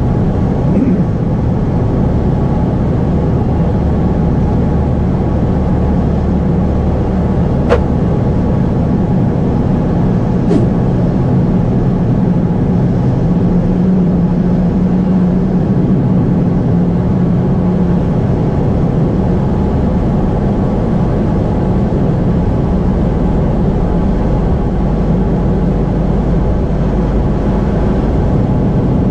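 Boeing 777-200ER engine starting during pushback, heard from the flight deck as a steady low hum and rumble. A sharp click about 8 seconds in and a fainter one a few seconds later.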